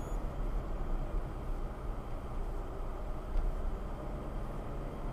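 Steady low rumble of a car driving, engine and tyre noise heard from inside the car.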